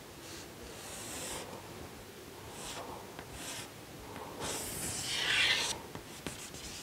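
Chalk drawing lines on a chalkboard: a series of short scratchy strokes, the longest and loudest about five seconds in, followed by a few light taps.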